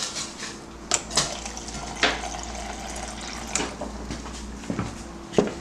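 Water running from a tap into a container as it fills, with several short knocks and clinks.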